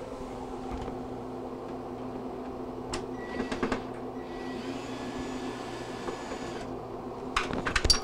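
Admiral side-by-side refrigerator running with a steady low hum from its compressor and evaporator fan. A few light clicks, and a louder cluster near the end, come from a screwdriver and the freezer's back panel being handled.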